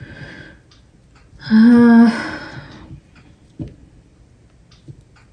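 A woman's short hummed "hmm", loud and held on one pitch for about half a second, about one and a half seconds in. A few light taps follow later.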